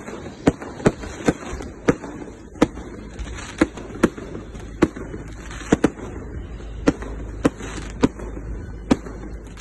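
Fireworks going off: a string of sharp bangs at irregular intervals, about one to two a second.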